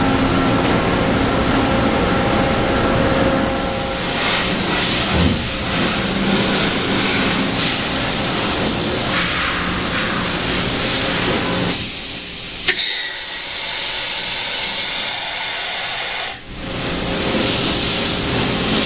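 Toshiba BTD13 CNC horizontal boring mill in operation: a steady hissing machine noise, with a sharp click about thirteen seconds in.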